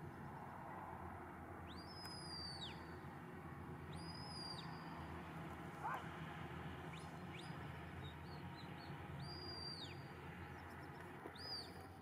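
Shepherd's whistle commands to a working sheepdog: about five separate whistles a couple of seconds apart, each sweeping sharply up, holding a high note, then dropping away. A short sharp sound comes about halfway through, over a steady low outdoor rumble.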